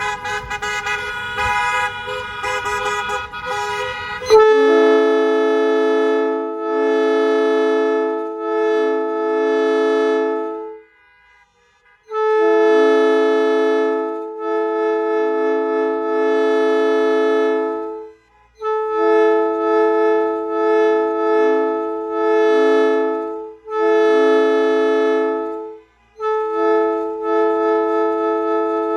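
Multi-chime train air horn, which its owner has been told is a Nathan P5, sounding a chord of several notes in a series of long blasts several seconds each, with brief breaks between. For the first four seconds or so the sound is rougher, with a hiss under the tones, before the chord comes in clean and loud.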